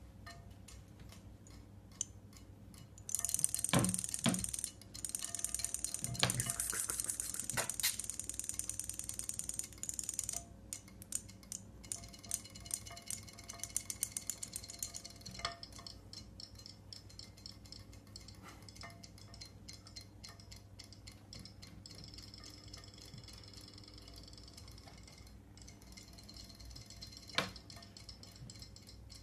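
Battery-powered robotic clownfish toy with its tail motor running, making a rapid, fast-repeating clicking, loudest in the first ten seconds and then thinning to scattered ticks, with one sharp tap near the end.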